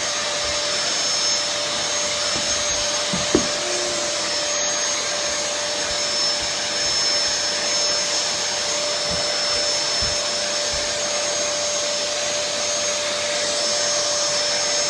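Vacuum cleaner running steadily with a constant hum and high whine, sucking dust out of a clogged heat pump air filter, with a brief knock about three seconds in.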